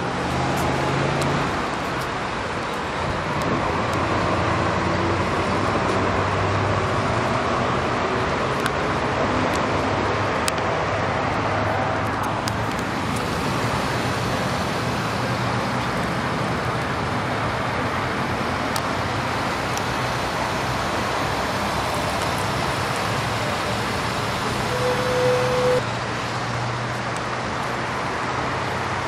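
Steady road traffic noise, with the low hum of passing car engines.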